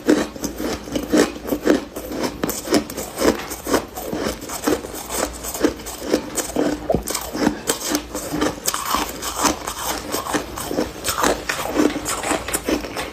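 Mouth chewing and crunching a soft chunk of freezer frost close to the microphone, a rapid, irregular run of crisp crunches.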